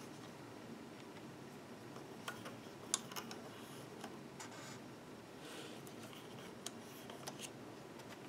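Faint clicks and taps of fingers and elastic loom bands against the clear plastic pegs of a rubber-band loom while bands are stretched across it, a handful scattered irregularly, the sharpest about three seconds in, over a low steady room hum.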